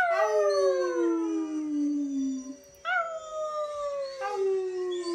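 Siberian husky puppy howling: three long howls one after another, each sliding slowly down in pitch.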